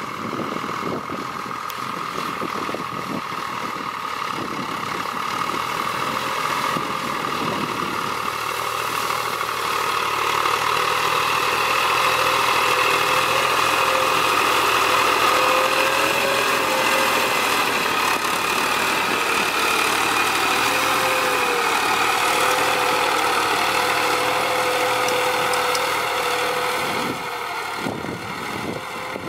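Farm tractor's diesel engine running under load while pulling a disc plough through rough ground. It grows louder over the first dozen seconds, its note wavers slightly in the middle, and it drops near the end.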